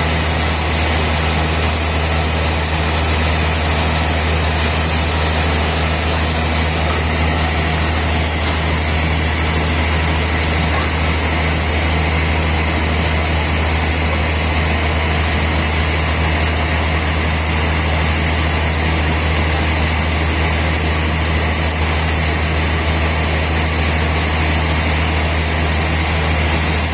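Sawmill machinery running with a steady low drone and no change in pitch or level.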